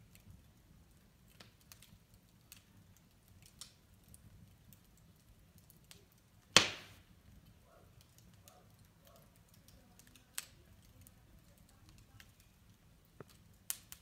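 Wood fire crackling in a fireplace: scattered pops and snaps over a faint low hum, with one loud sharp pop about halfway through and smaller snaps near ten seconds in and near the end.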